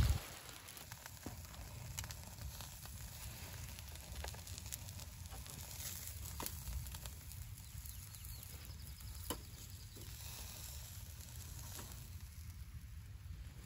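Faint sizzling of lamb chops over a charcoal grill, with scattered small crackles over a low rumble.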